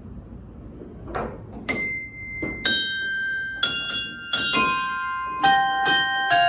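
Russian Orthodox church bells struck one after another, about eight strokes, each left ringing. The pitch steps down from bell to bell in a descending run that starts about a second and a half in, over a low background rumble.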